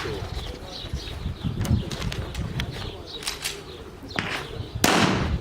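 A pistol shot near the end, loud and sharp with a brief ring after it, following a fainter crack just before. The first shots of an IPSC stage, fired after the start signal.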